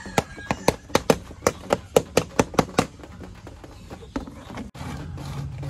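Rapid, evenly spaced knocks, about four a second, from work on a dappu frame drum; they stop about three seconds in. Near the end a steady low hum starts after a sudden break.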